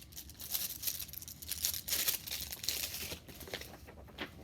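Pages of a paper picture book rustling and crinkling as they are handled and turned, in quick, irregular scratchy bursts.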